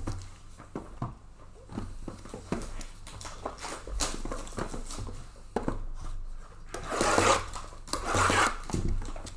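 Trading-card hobby boxes and packs being handled and opened by hand: cardboard and wrapping rubbing and scraping, with scattered small knocks. Two louder rasping stretches come near the end.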